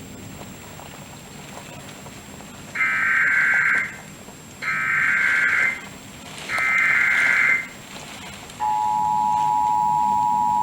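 Emergency Alert System tones from a television broadcast: three screeching bursts of digital header data, each about a second long, then a steady two-tone attention signal that starts about eight and a half seconds in and holds. These tones mark the start of an emergency alert.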